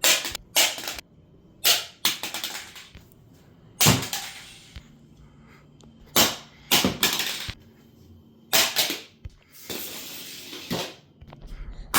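A plastic six-outlet wall adapter dropped onto a hard floor again and again: a series of sharp clattering impacts, some with a quick bounce after, spaced a second or two apart, with a longer scraping clatter near the end.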